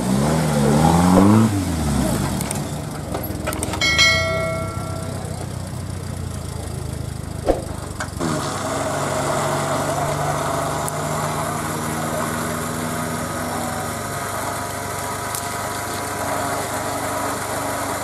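Off-road 4x4's engine revving up and down, then running steadily at idle. A short ringing tone sounds about four seconds in, and there is a single sharp click a few seconds later.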